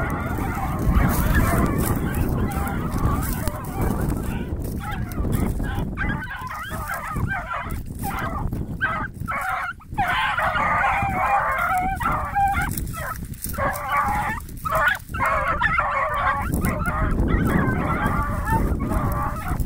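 A pack of young American beagles baying, many overlapping voices at once, the sound of hounds giving tongue as they work a scent, with short breaks about ten and fifteen seconds in.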